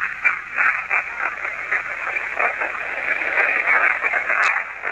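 Ghost-hunting spirit-box device playing through a small speaker: a rapid, choppy hiss of radio-like noise with broken voice-like fragments, which the investigators take as spirit words answering their question.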